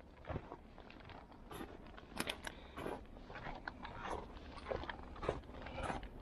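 Footsteps crunching in fresh, packed snow at a steady walking pace, about two steps a second.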